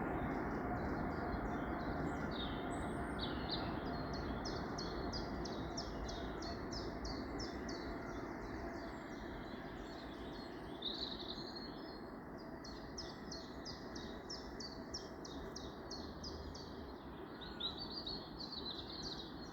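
Several songbirds singing in a morning chorus, with rapid runs of high repeated chirps and warbling phrases, over a steady low background hiss.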